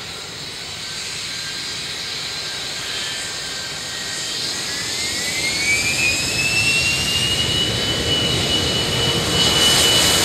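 Boeing 737 Classic's CFM56 turbofan engines spooling up for takeoff. Over the steady jet roar, a whine climbs in pitch about halfway through and then holds level, as the engines are stabilized at part thrust before takeoff thrust is set.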